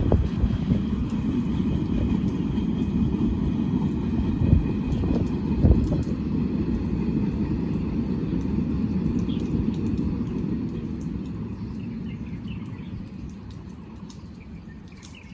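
Freight train rolling away along the line, the low rumble of its wheels on the rails fading steadily. Two loud clunks come about four and a half and six seconds in.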